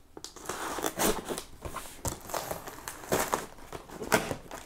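Knife blade slitting the packing tape along a cardboard box's seam, then the tape and cardboard flaps crackling and tearing as the box is worked open, a run of short irregular scratches and crinkles.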